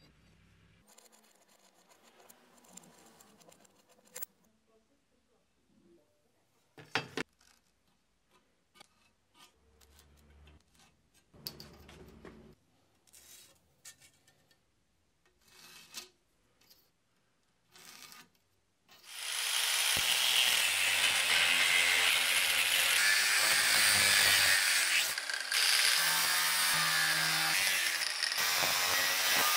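A few faint clicks and knocks of tools being handled. Then, about two-thirds of the way in, a power tool starts working metal with a loud, steady noise that runs on to the end, with a brief dip partway through.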